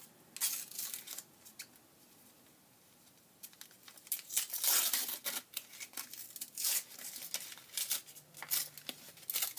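Chocolate bar wrapper being torn open and crinkled by hand: a short burst of rustling near the start, a pause of about two seconds, then steady crackling and tearing.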